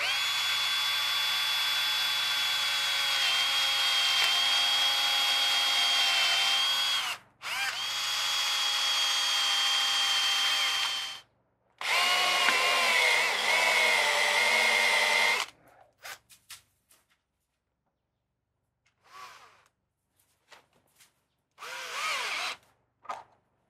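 Power drill boring upward into the wooden keel timber under a boat hull. It runs in three long steady whining spells of several seconds, its pitch wavering under load in the third, then in a string of short bursts.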